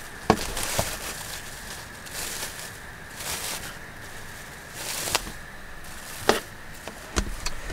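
Cling film crinkling and rustling as it is peeled off a sandwich, with a few sharp crackling clicks.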